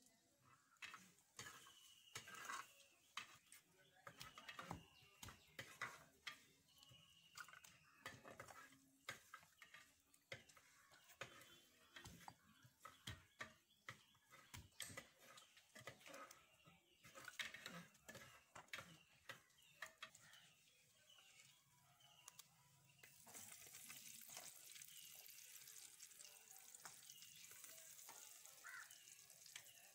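Garlic cloves being pounded in a stone mortar with a pestle: a long run of irregular knocks. Near the end the knocking gives way to a steady hiss.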